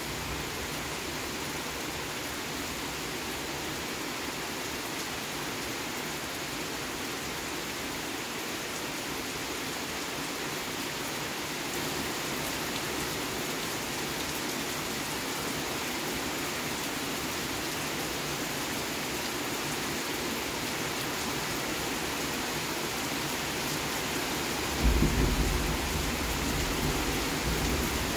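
Steady rain falling with an even hiss. About three seconds before the end a sudden low rumble of thunder breaks in and keeps rolling.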